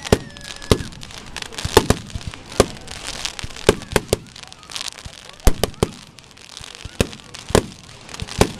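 Fireworks display: aerial shells bursting in an irregular series of sharp bangs, about fifteen in all, the loudest about five and a half seconds in.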